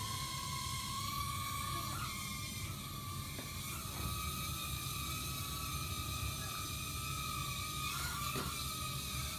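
Ares Ethos micro quadcopter's tiny motors and propellers whining steadily in flight, a high hum that edges up in pitch in the first couple of seconds and then holds. A few faint clicks sound over it.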